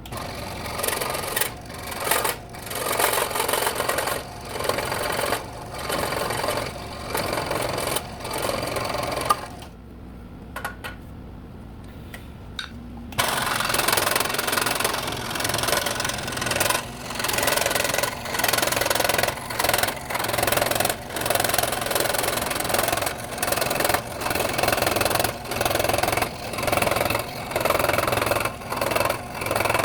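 Scroll saw running and cutting wood, the cutting noise rising and falling with the feed. It eases off for a few seconds just before the middle, then runs louder and steadier with a regular dip about once a second.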